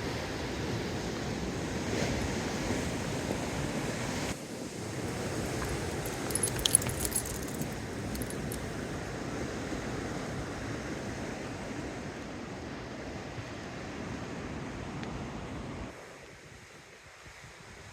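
Strong wind buffeting the microphone as a steady, low rushing noise, easing near the end. About six to eight seconds in, a brief metallic jingle.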